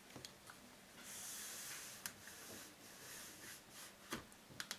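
Faint rustling as a clear acrylic patchwork ruler is slid and repositioned over quilted fabric on a cutting mat, with a few light taps and clicks as it is set down and pressed flat by hand.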